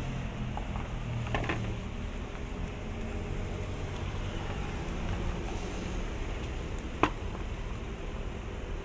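Plastic air filter housing cover of a Perodua Alza being handled and lifted off: a couple of soft knocks about a second and a half in and one sharp plastic click about seven seconds in, over a steady mechanical hum.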